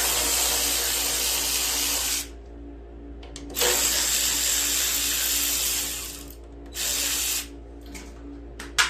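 Power tool run in three bursts, two of about two seconds and a short one near the end, backing out the 10 mm bolts that hold the carburetor on a small engine.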